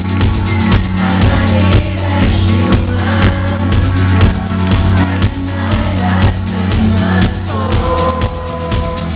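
Amplified rock music played live at a concert, with a heavy bass and a steady beat, and a long held high note near the end.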